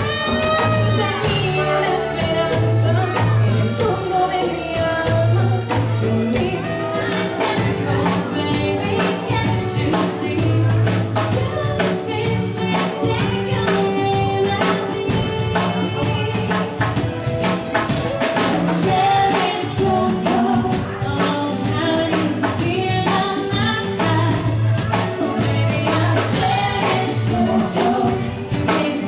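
Live band music with singing over a steady bass line and a regular percussion beat.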